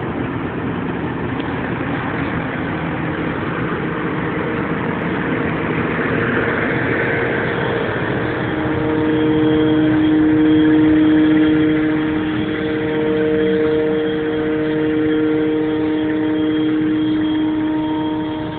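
New Holland T7.220 tractor's six-cylinder diesel running steadily under load while pulling a Pöttinger Terrasem C4 seed drill. About halfway through, a steady whine with a few set pitches comes up over the engine.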